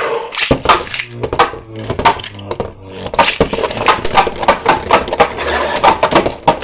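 Two Beyblades, a 3D-printed Hero Samuraizor and a Super Hyperion II, launched into a stadium and spinning against each other, with a rapid, continuous clatter of hard plastic-and-metal clashes and rattles. The noise starts suddenly at launch.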